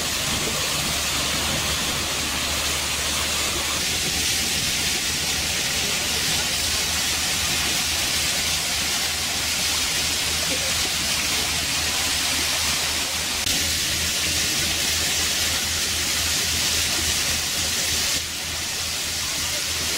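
Steady rush of water and wind from a moving riverboat, over a low, even engine drone.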